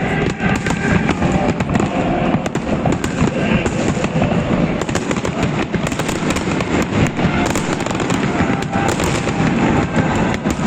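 Festive fireworks salute going off continuously: many sharp cracks and pops in quick succession over a dense, steady rumble of bursts.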